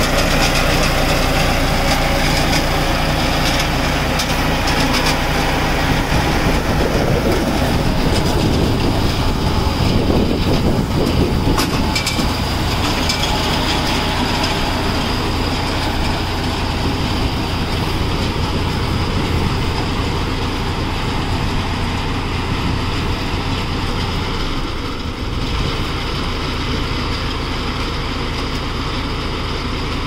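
Tractor-driven round baler running, its chain-and-sprocket drive and rollers clattering steadily over the tractor engine's drone. It becomes a little quieter about three-quarters of the way through.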